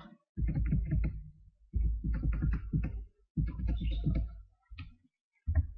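Typing on a computer keyboard: quick runs of keystrokes in three bursts of about a second each, then a couple of single key presses near the end.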